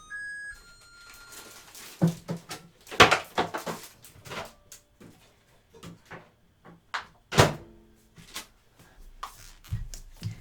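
Irregular knocks, thunks and clatter of household handling, like cupboard doors and containers being moved, the loudest about three and seven and a half seconds in. It starts with a brief electronic beep.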